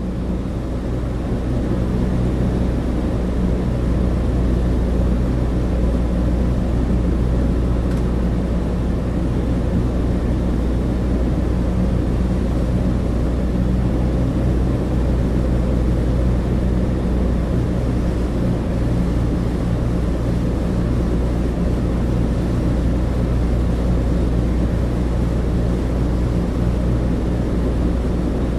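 Cabin interior of a Douglas DC-3: the steady, deep drone of its twin radial piston engines and propellers, fading in over the first couple of seconds.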